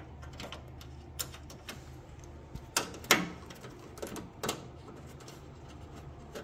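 Irregular metallic clicks and clinks of a socket ratchet and bolt being worked loose on a radiator mounting bracket, with a few sharper knocks around the middle.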